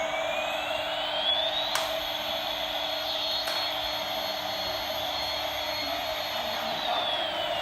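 Toy biplane running with a steady whirring and a high whine that rises in pitch over the first two seconds, holds steady, then starts to fall near the end.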